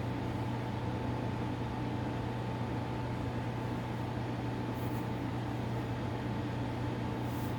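Steady room hum and hiss: a low hum with a faint higher tone running underneath, unchanging throughout.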